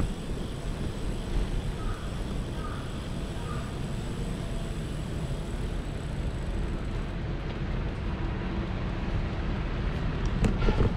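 City street ambience: a steady low rumble of traffic, with a few sharp clicks near the end.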